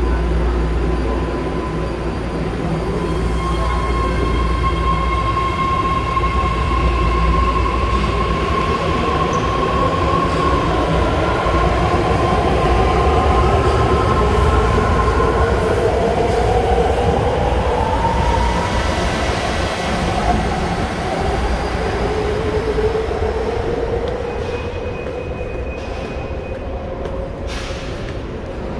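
BART train pulling out of an underground station: a low rumble with a steady high tone, then several rising whines as it picks up speed and draws away.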